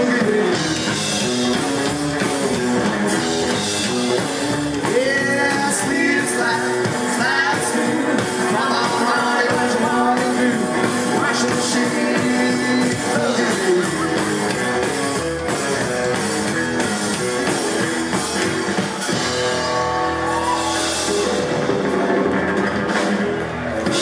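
Live rockabilly band playing: electric guitar, upright double bass and drum kit.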